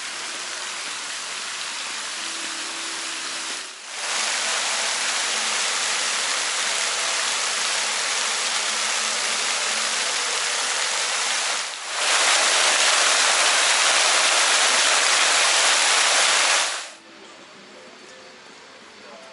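Park fountain jets spraying into a pool: a steady rush of falling water, broken by two brief dips and loudest in the latter part. It cuts off near the end, leaving a much quieter open-air background.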